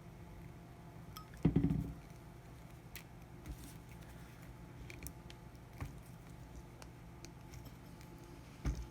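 Scissors snipping and working into a coaxial cable's plastic jacket: scattered small clicks and handling noise, with a louder knock and rustle about a second and a half in and another knock near the end.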